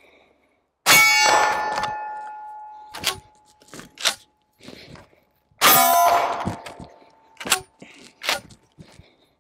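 Two 12-gauge pump-action shotgun blasts firing buckshot, about five seconds apart, each ringing out for over a second. Short sharp clacks from working the pump action come between and after them.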